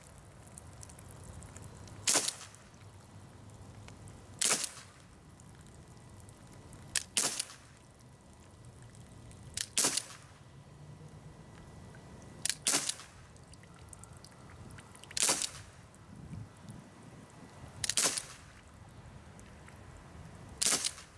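Umarex Brodax CO2 BB pistol firing eight shots, one about every two and a half seconds, each a sharp pop; a few come as a quick double crack.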